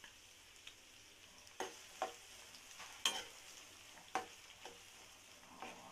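Chopped onions and green chillies frying in hot oil in a non-stick kadai, a faint steady sizzle, with a ladle scraping and knocking against the pan about six times as they are stirred; the loudest knock comes about three seconds in.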